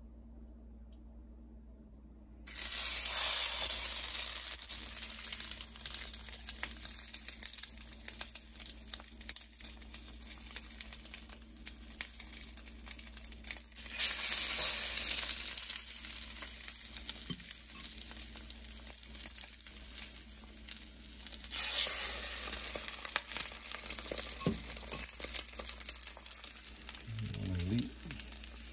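Egg-dipped bread slices for French toast laid into hot oil in a stainless skillet: a loud burst of sizzling about two seconds in, another about fourteen seconds in and a third about twenty-two seconds in, each settling into steady frying.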